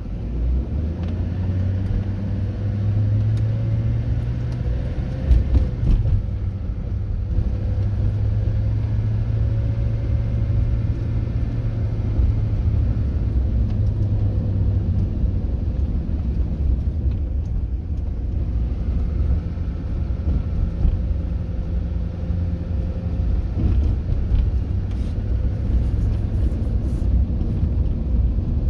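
Car engine and road noise heard from inside the cabin while driving: a steady low rumble with an engine hum. It gets louder in the first second as the car picks up speed.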